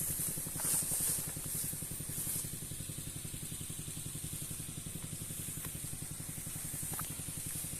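Small petrol engine of a Sanchin power sprayer running steadily, with an even, fast pulsing chug.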